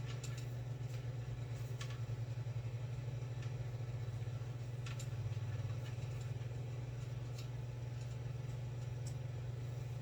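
Steady low hum, like a motor or electrical hum, with a few faint light clicks scattered through it.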